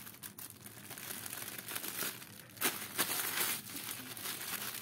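A clear plastic packet crinkling as it is handled, louder for about a second roughly two and a half seconds in.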